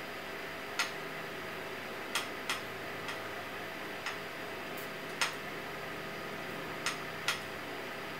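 Sharp, irregularly spaced ticks, about eight of them, over a steady hum with faint steady tones.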